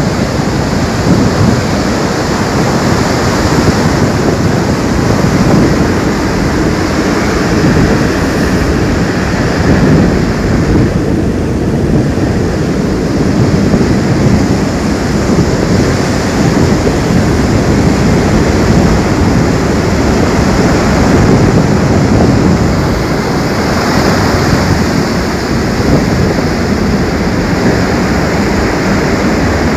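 Floodwater rushing in a loud, steady torrent, with wind buffeting the microphone.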